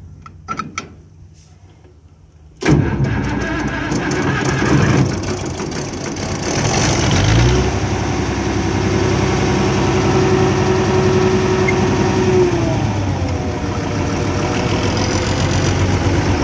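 Cockshutt 570 diesel tractor engine catching suddenly about two and a half seconds in, then running on steadily, with a brief rise in engine speed before it settles back.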